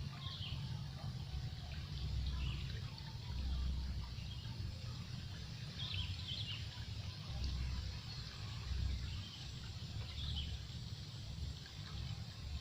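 Outdoor river ambience: a low rumble that swells and fades every second or two under a steady hiss, with a bird chirping briefly three times.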